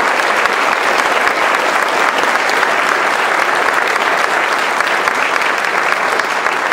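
Audience applauding, a steady dense clapping that holds at one level throughout.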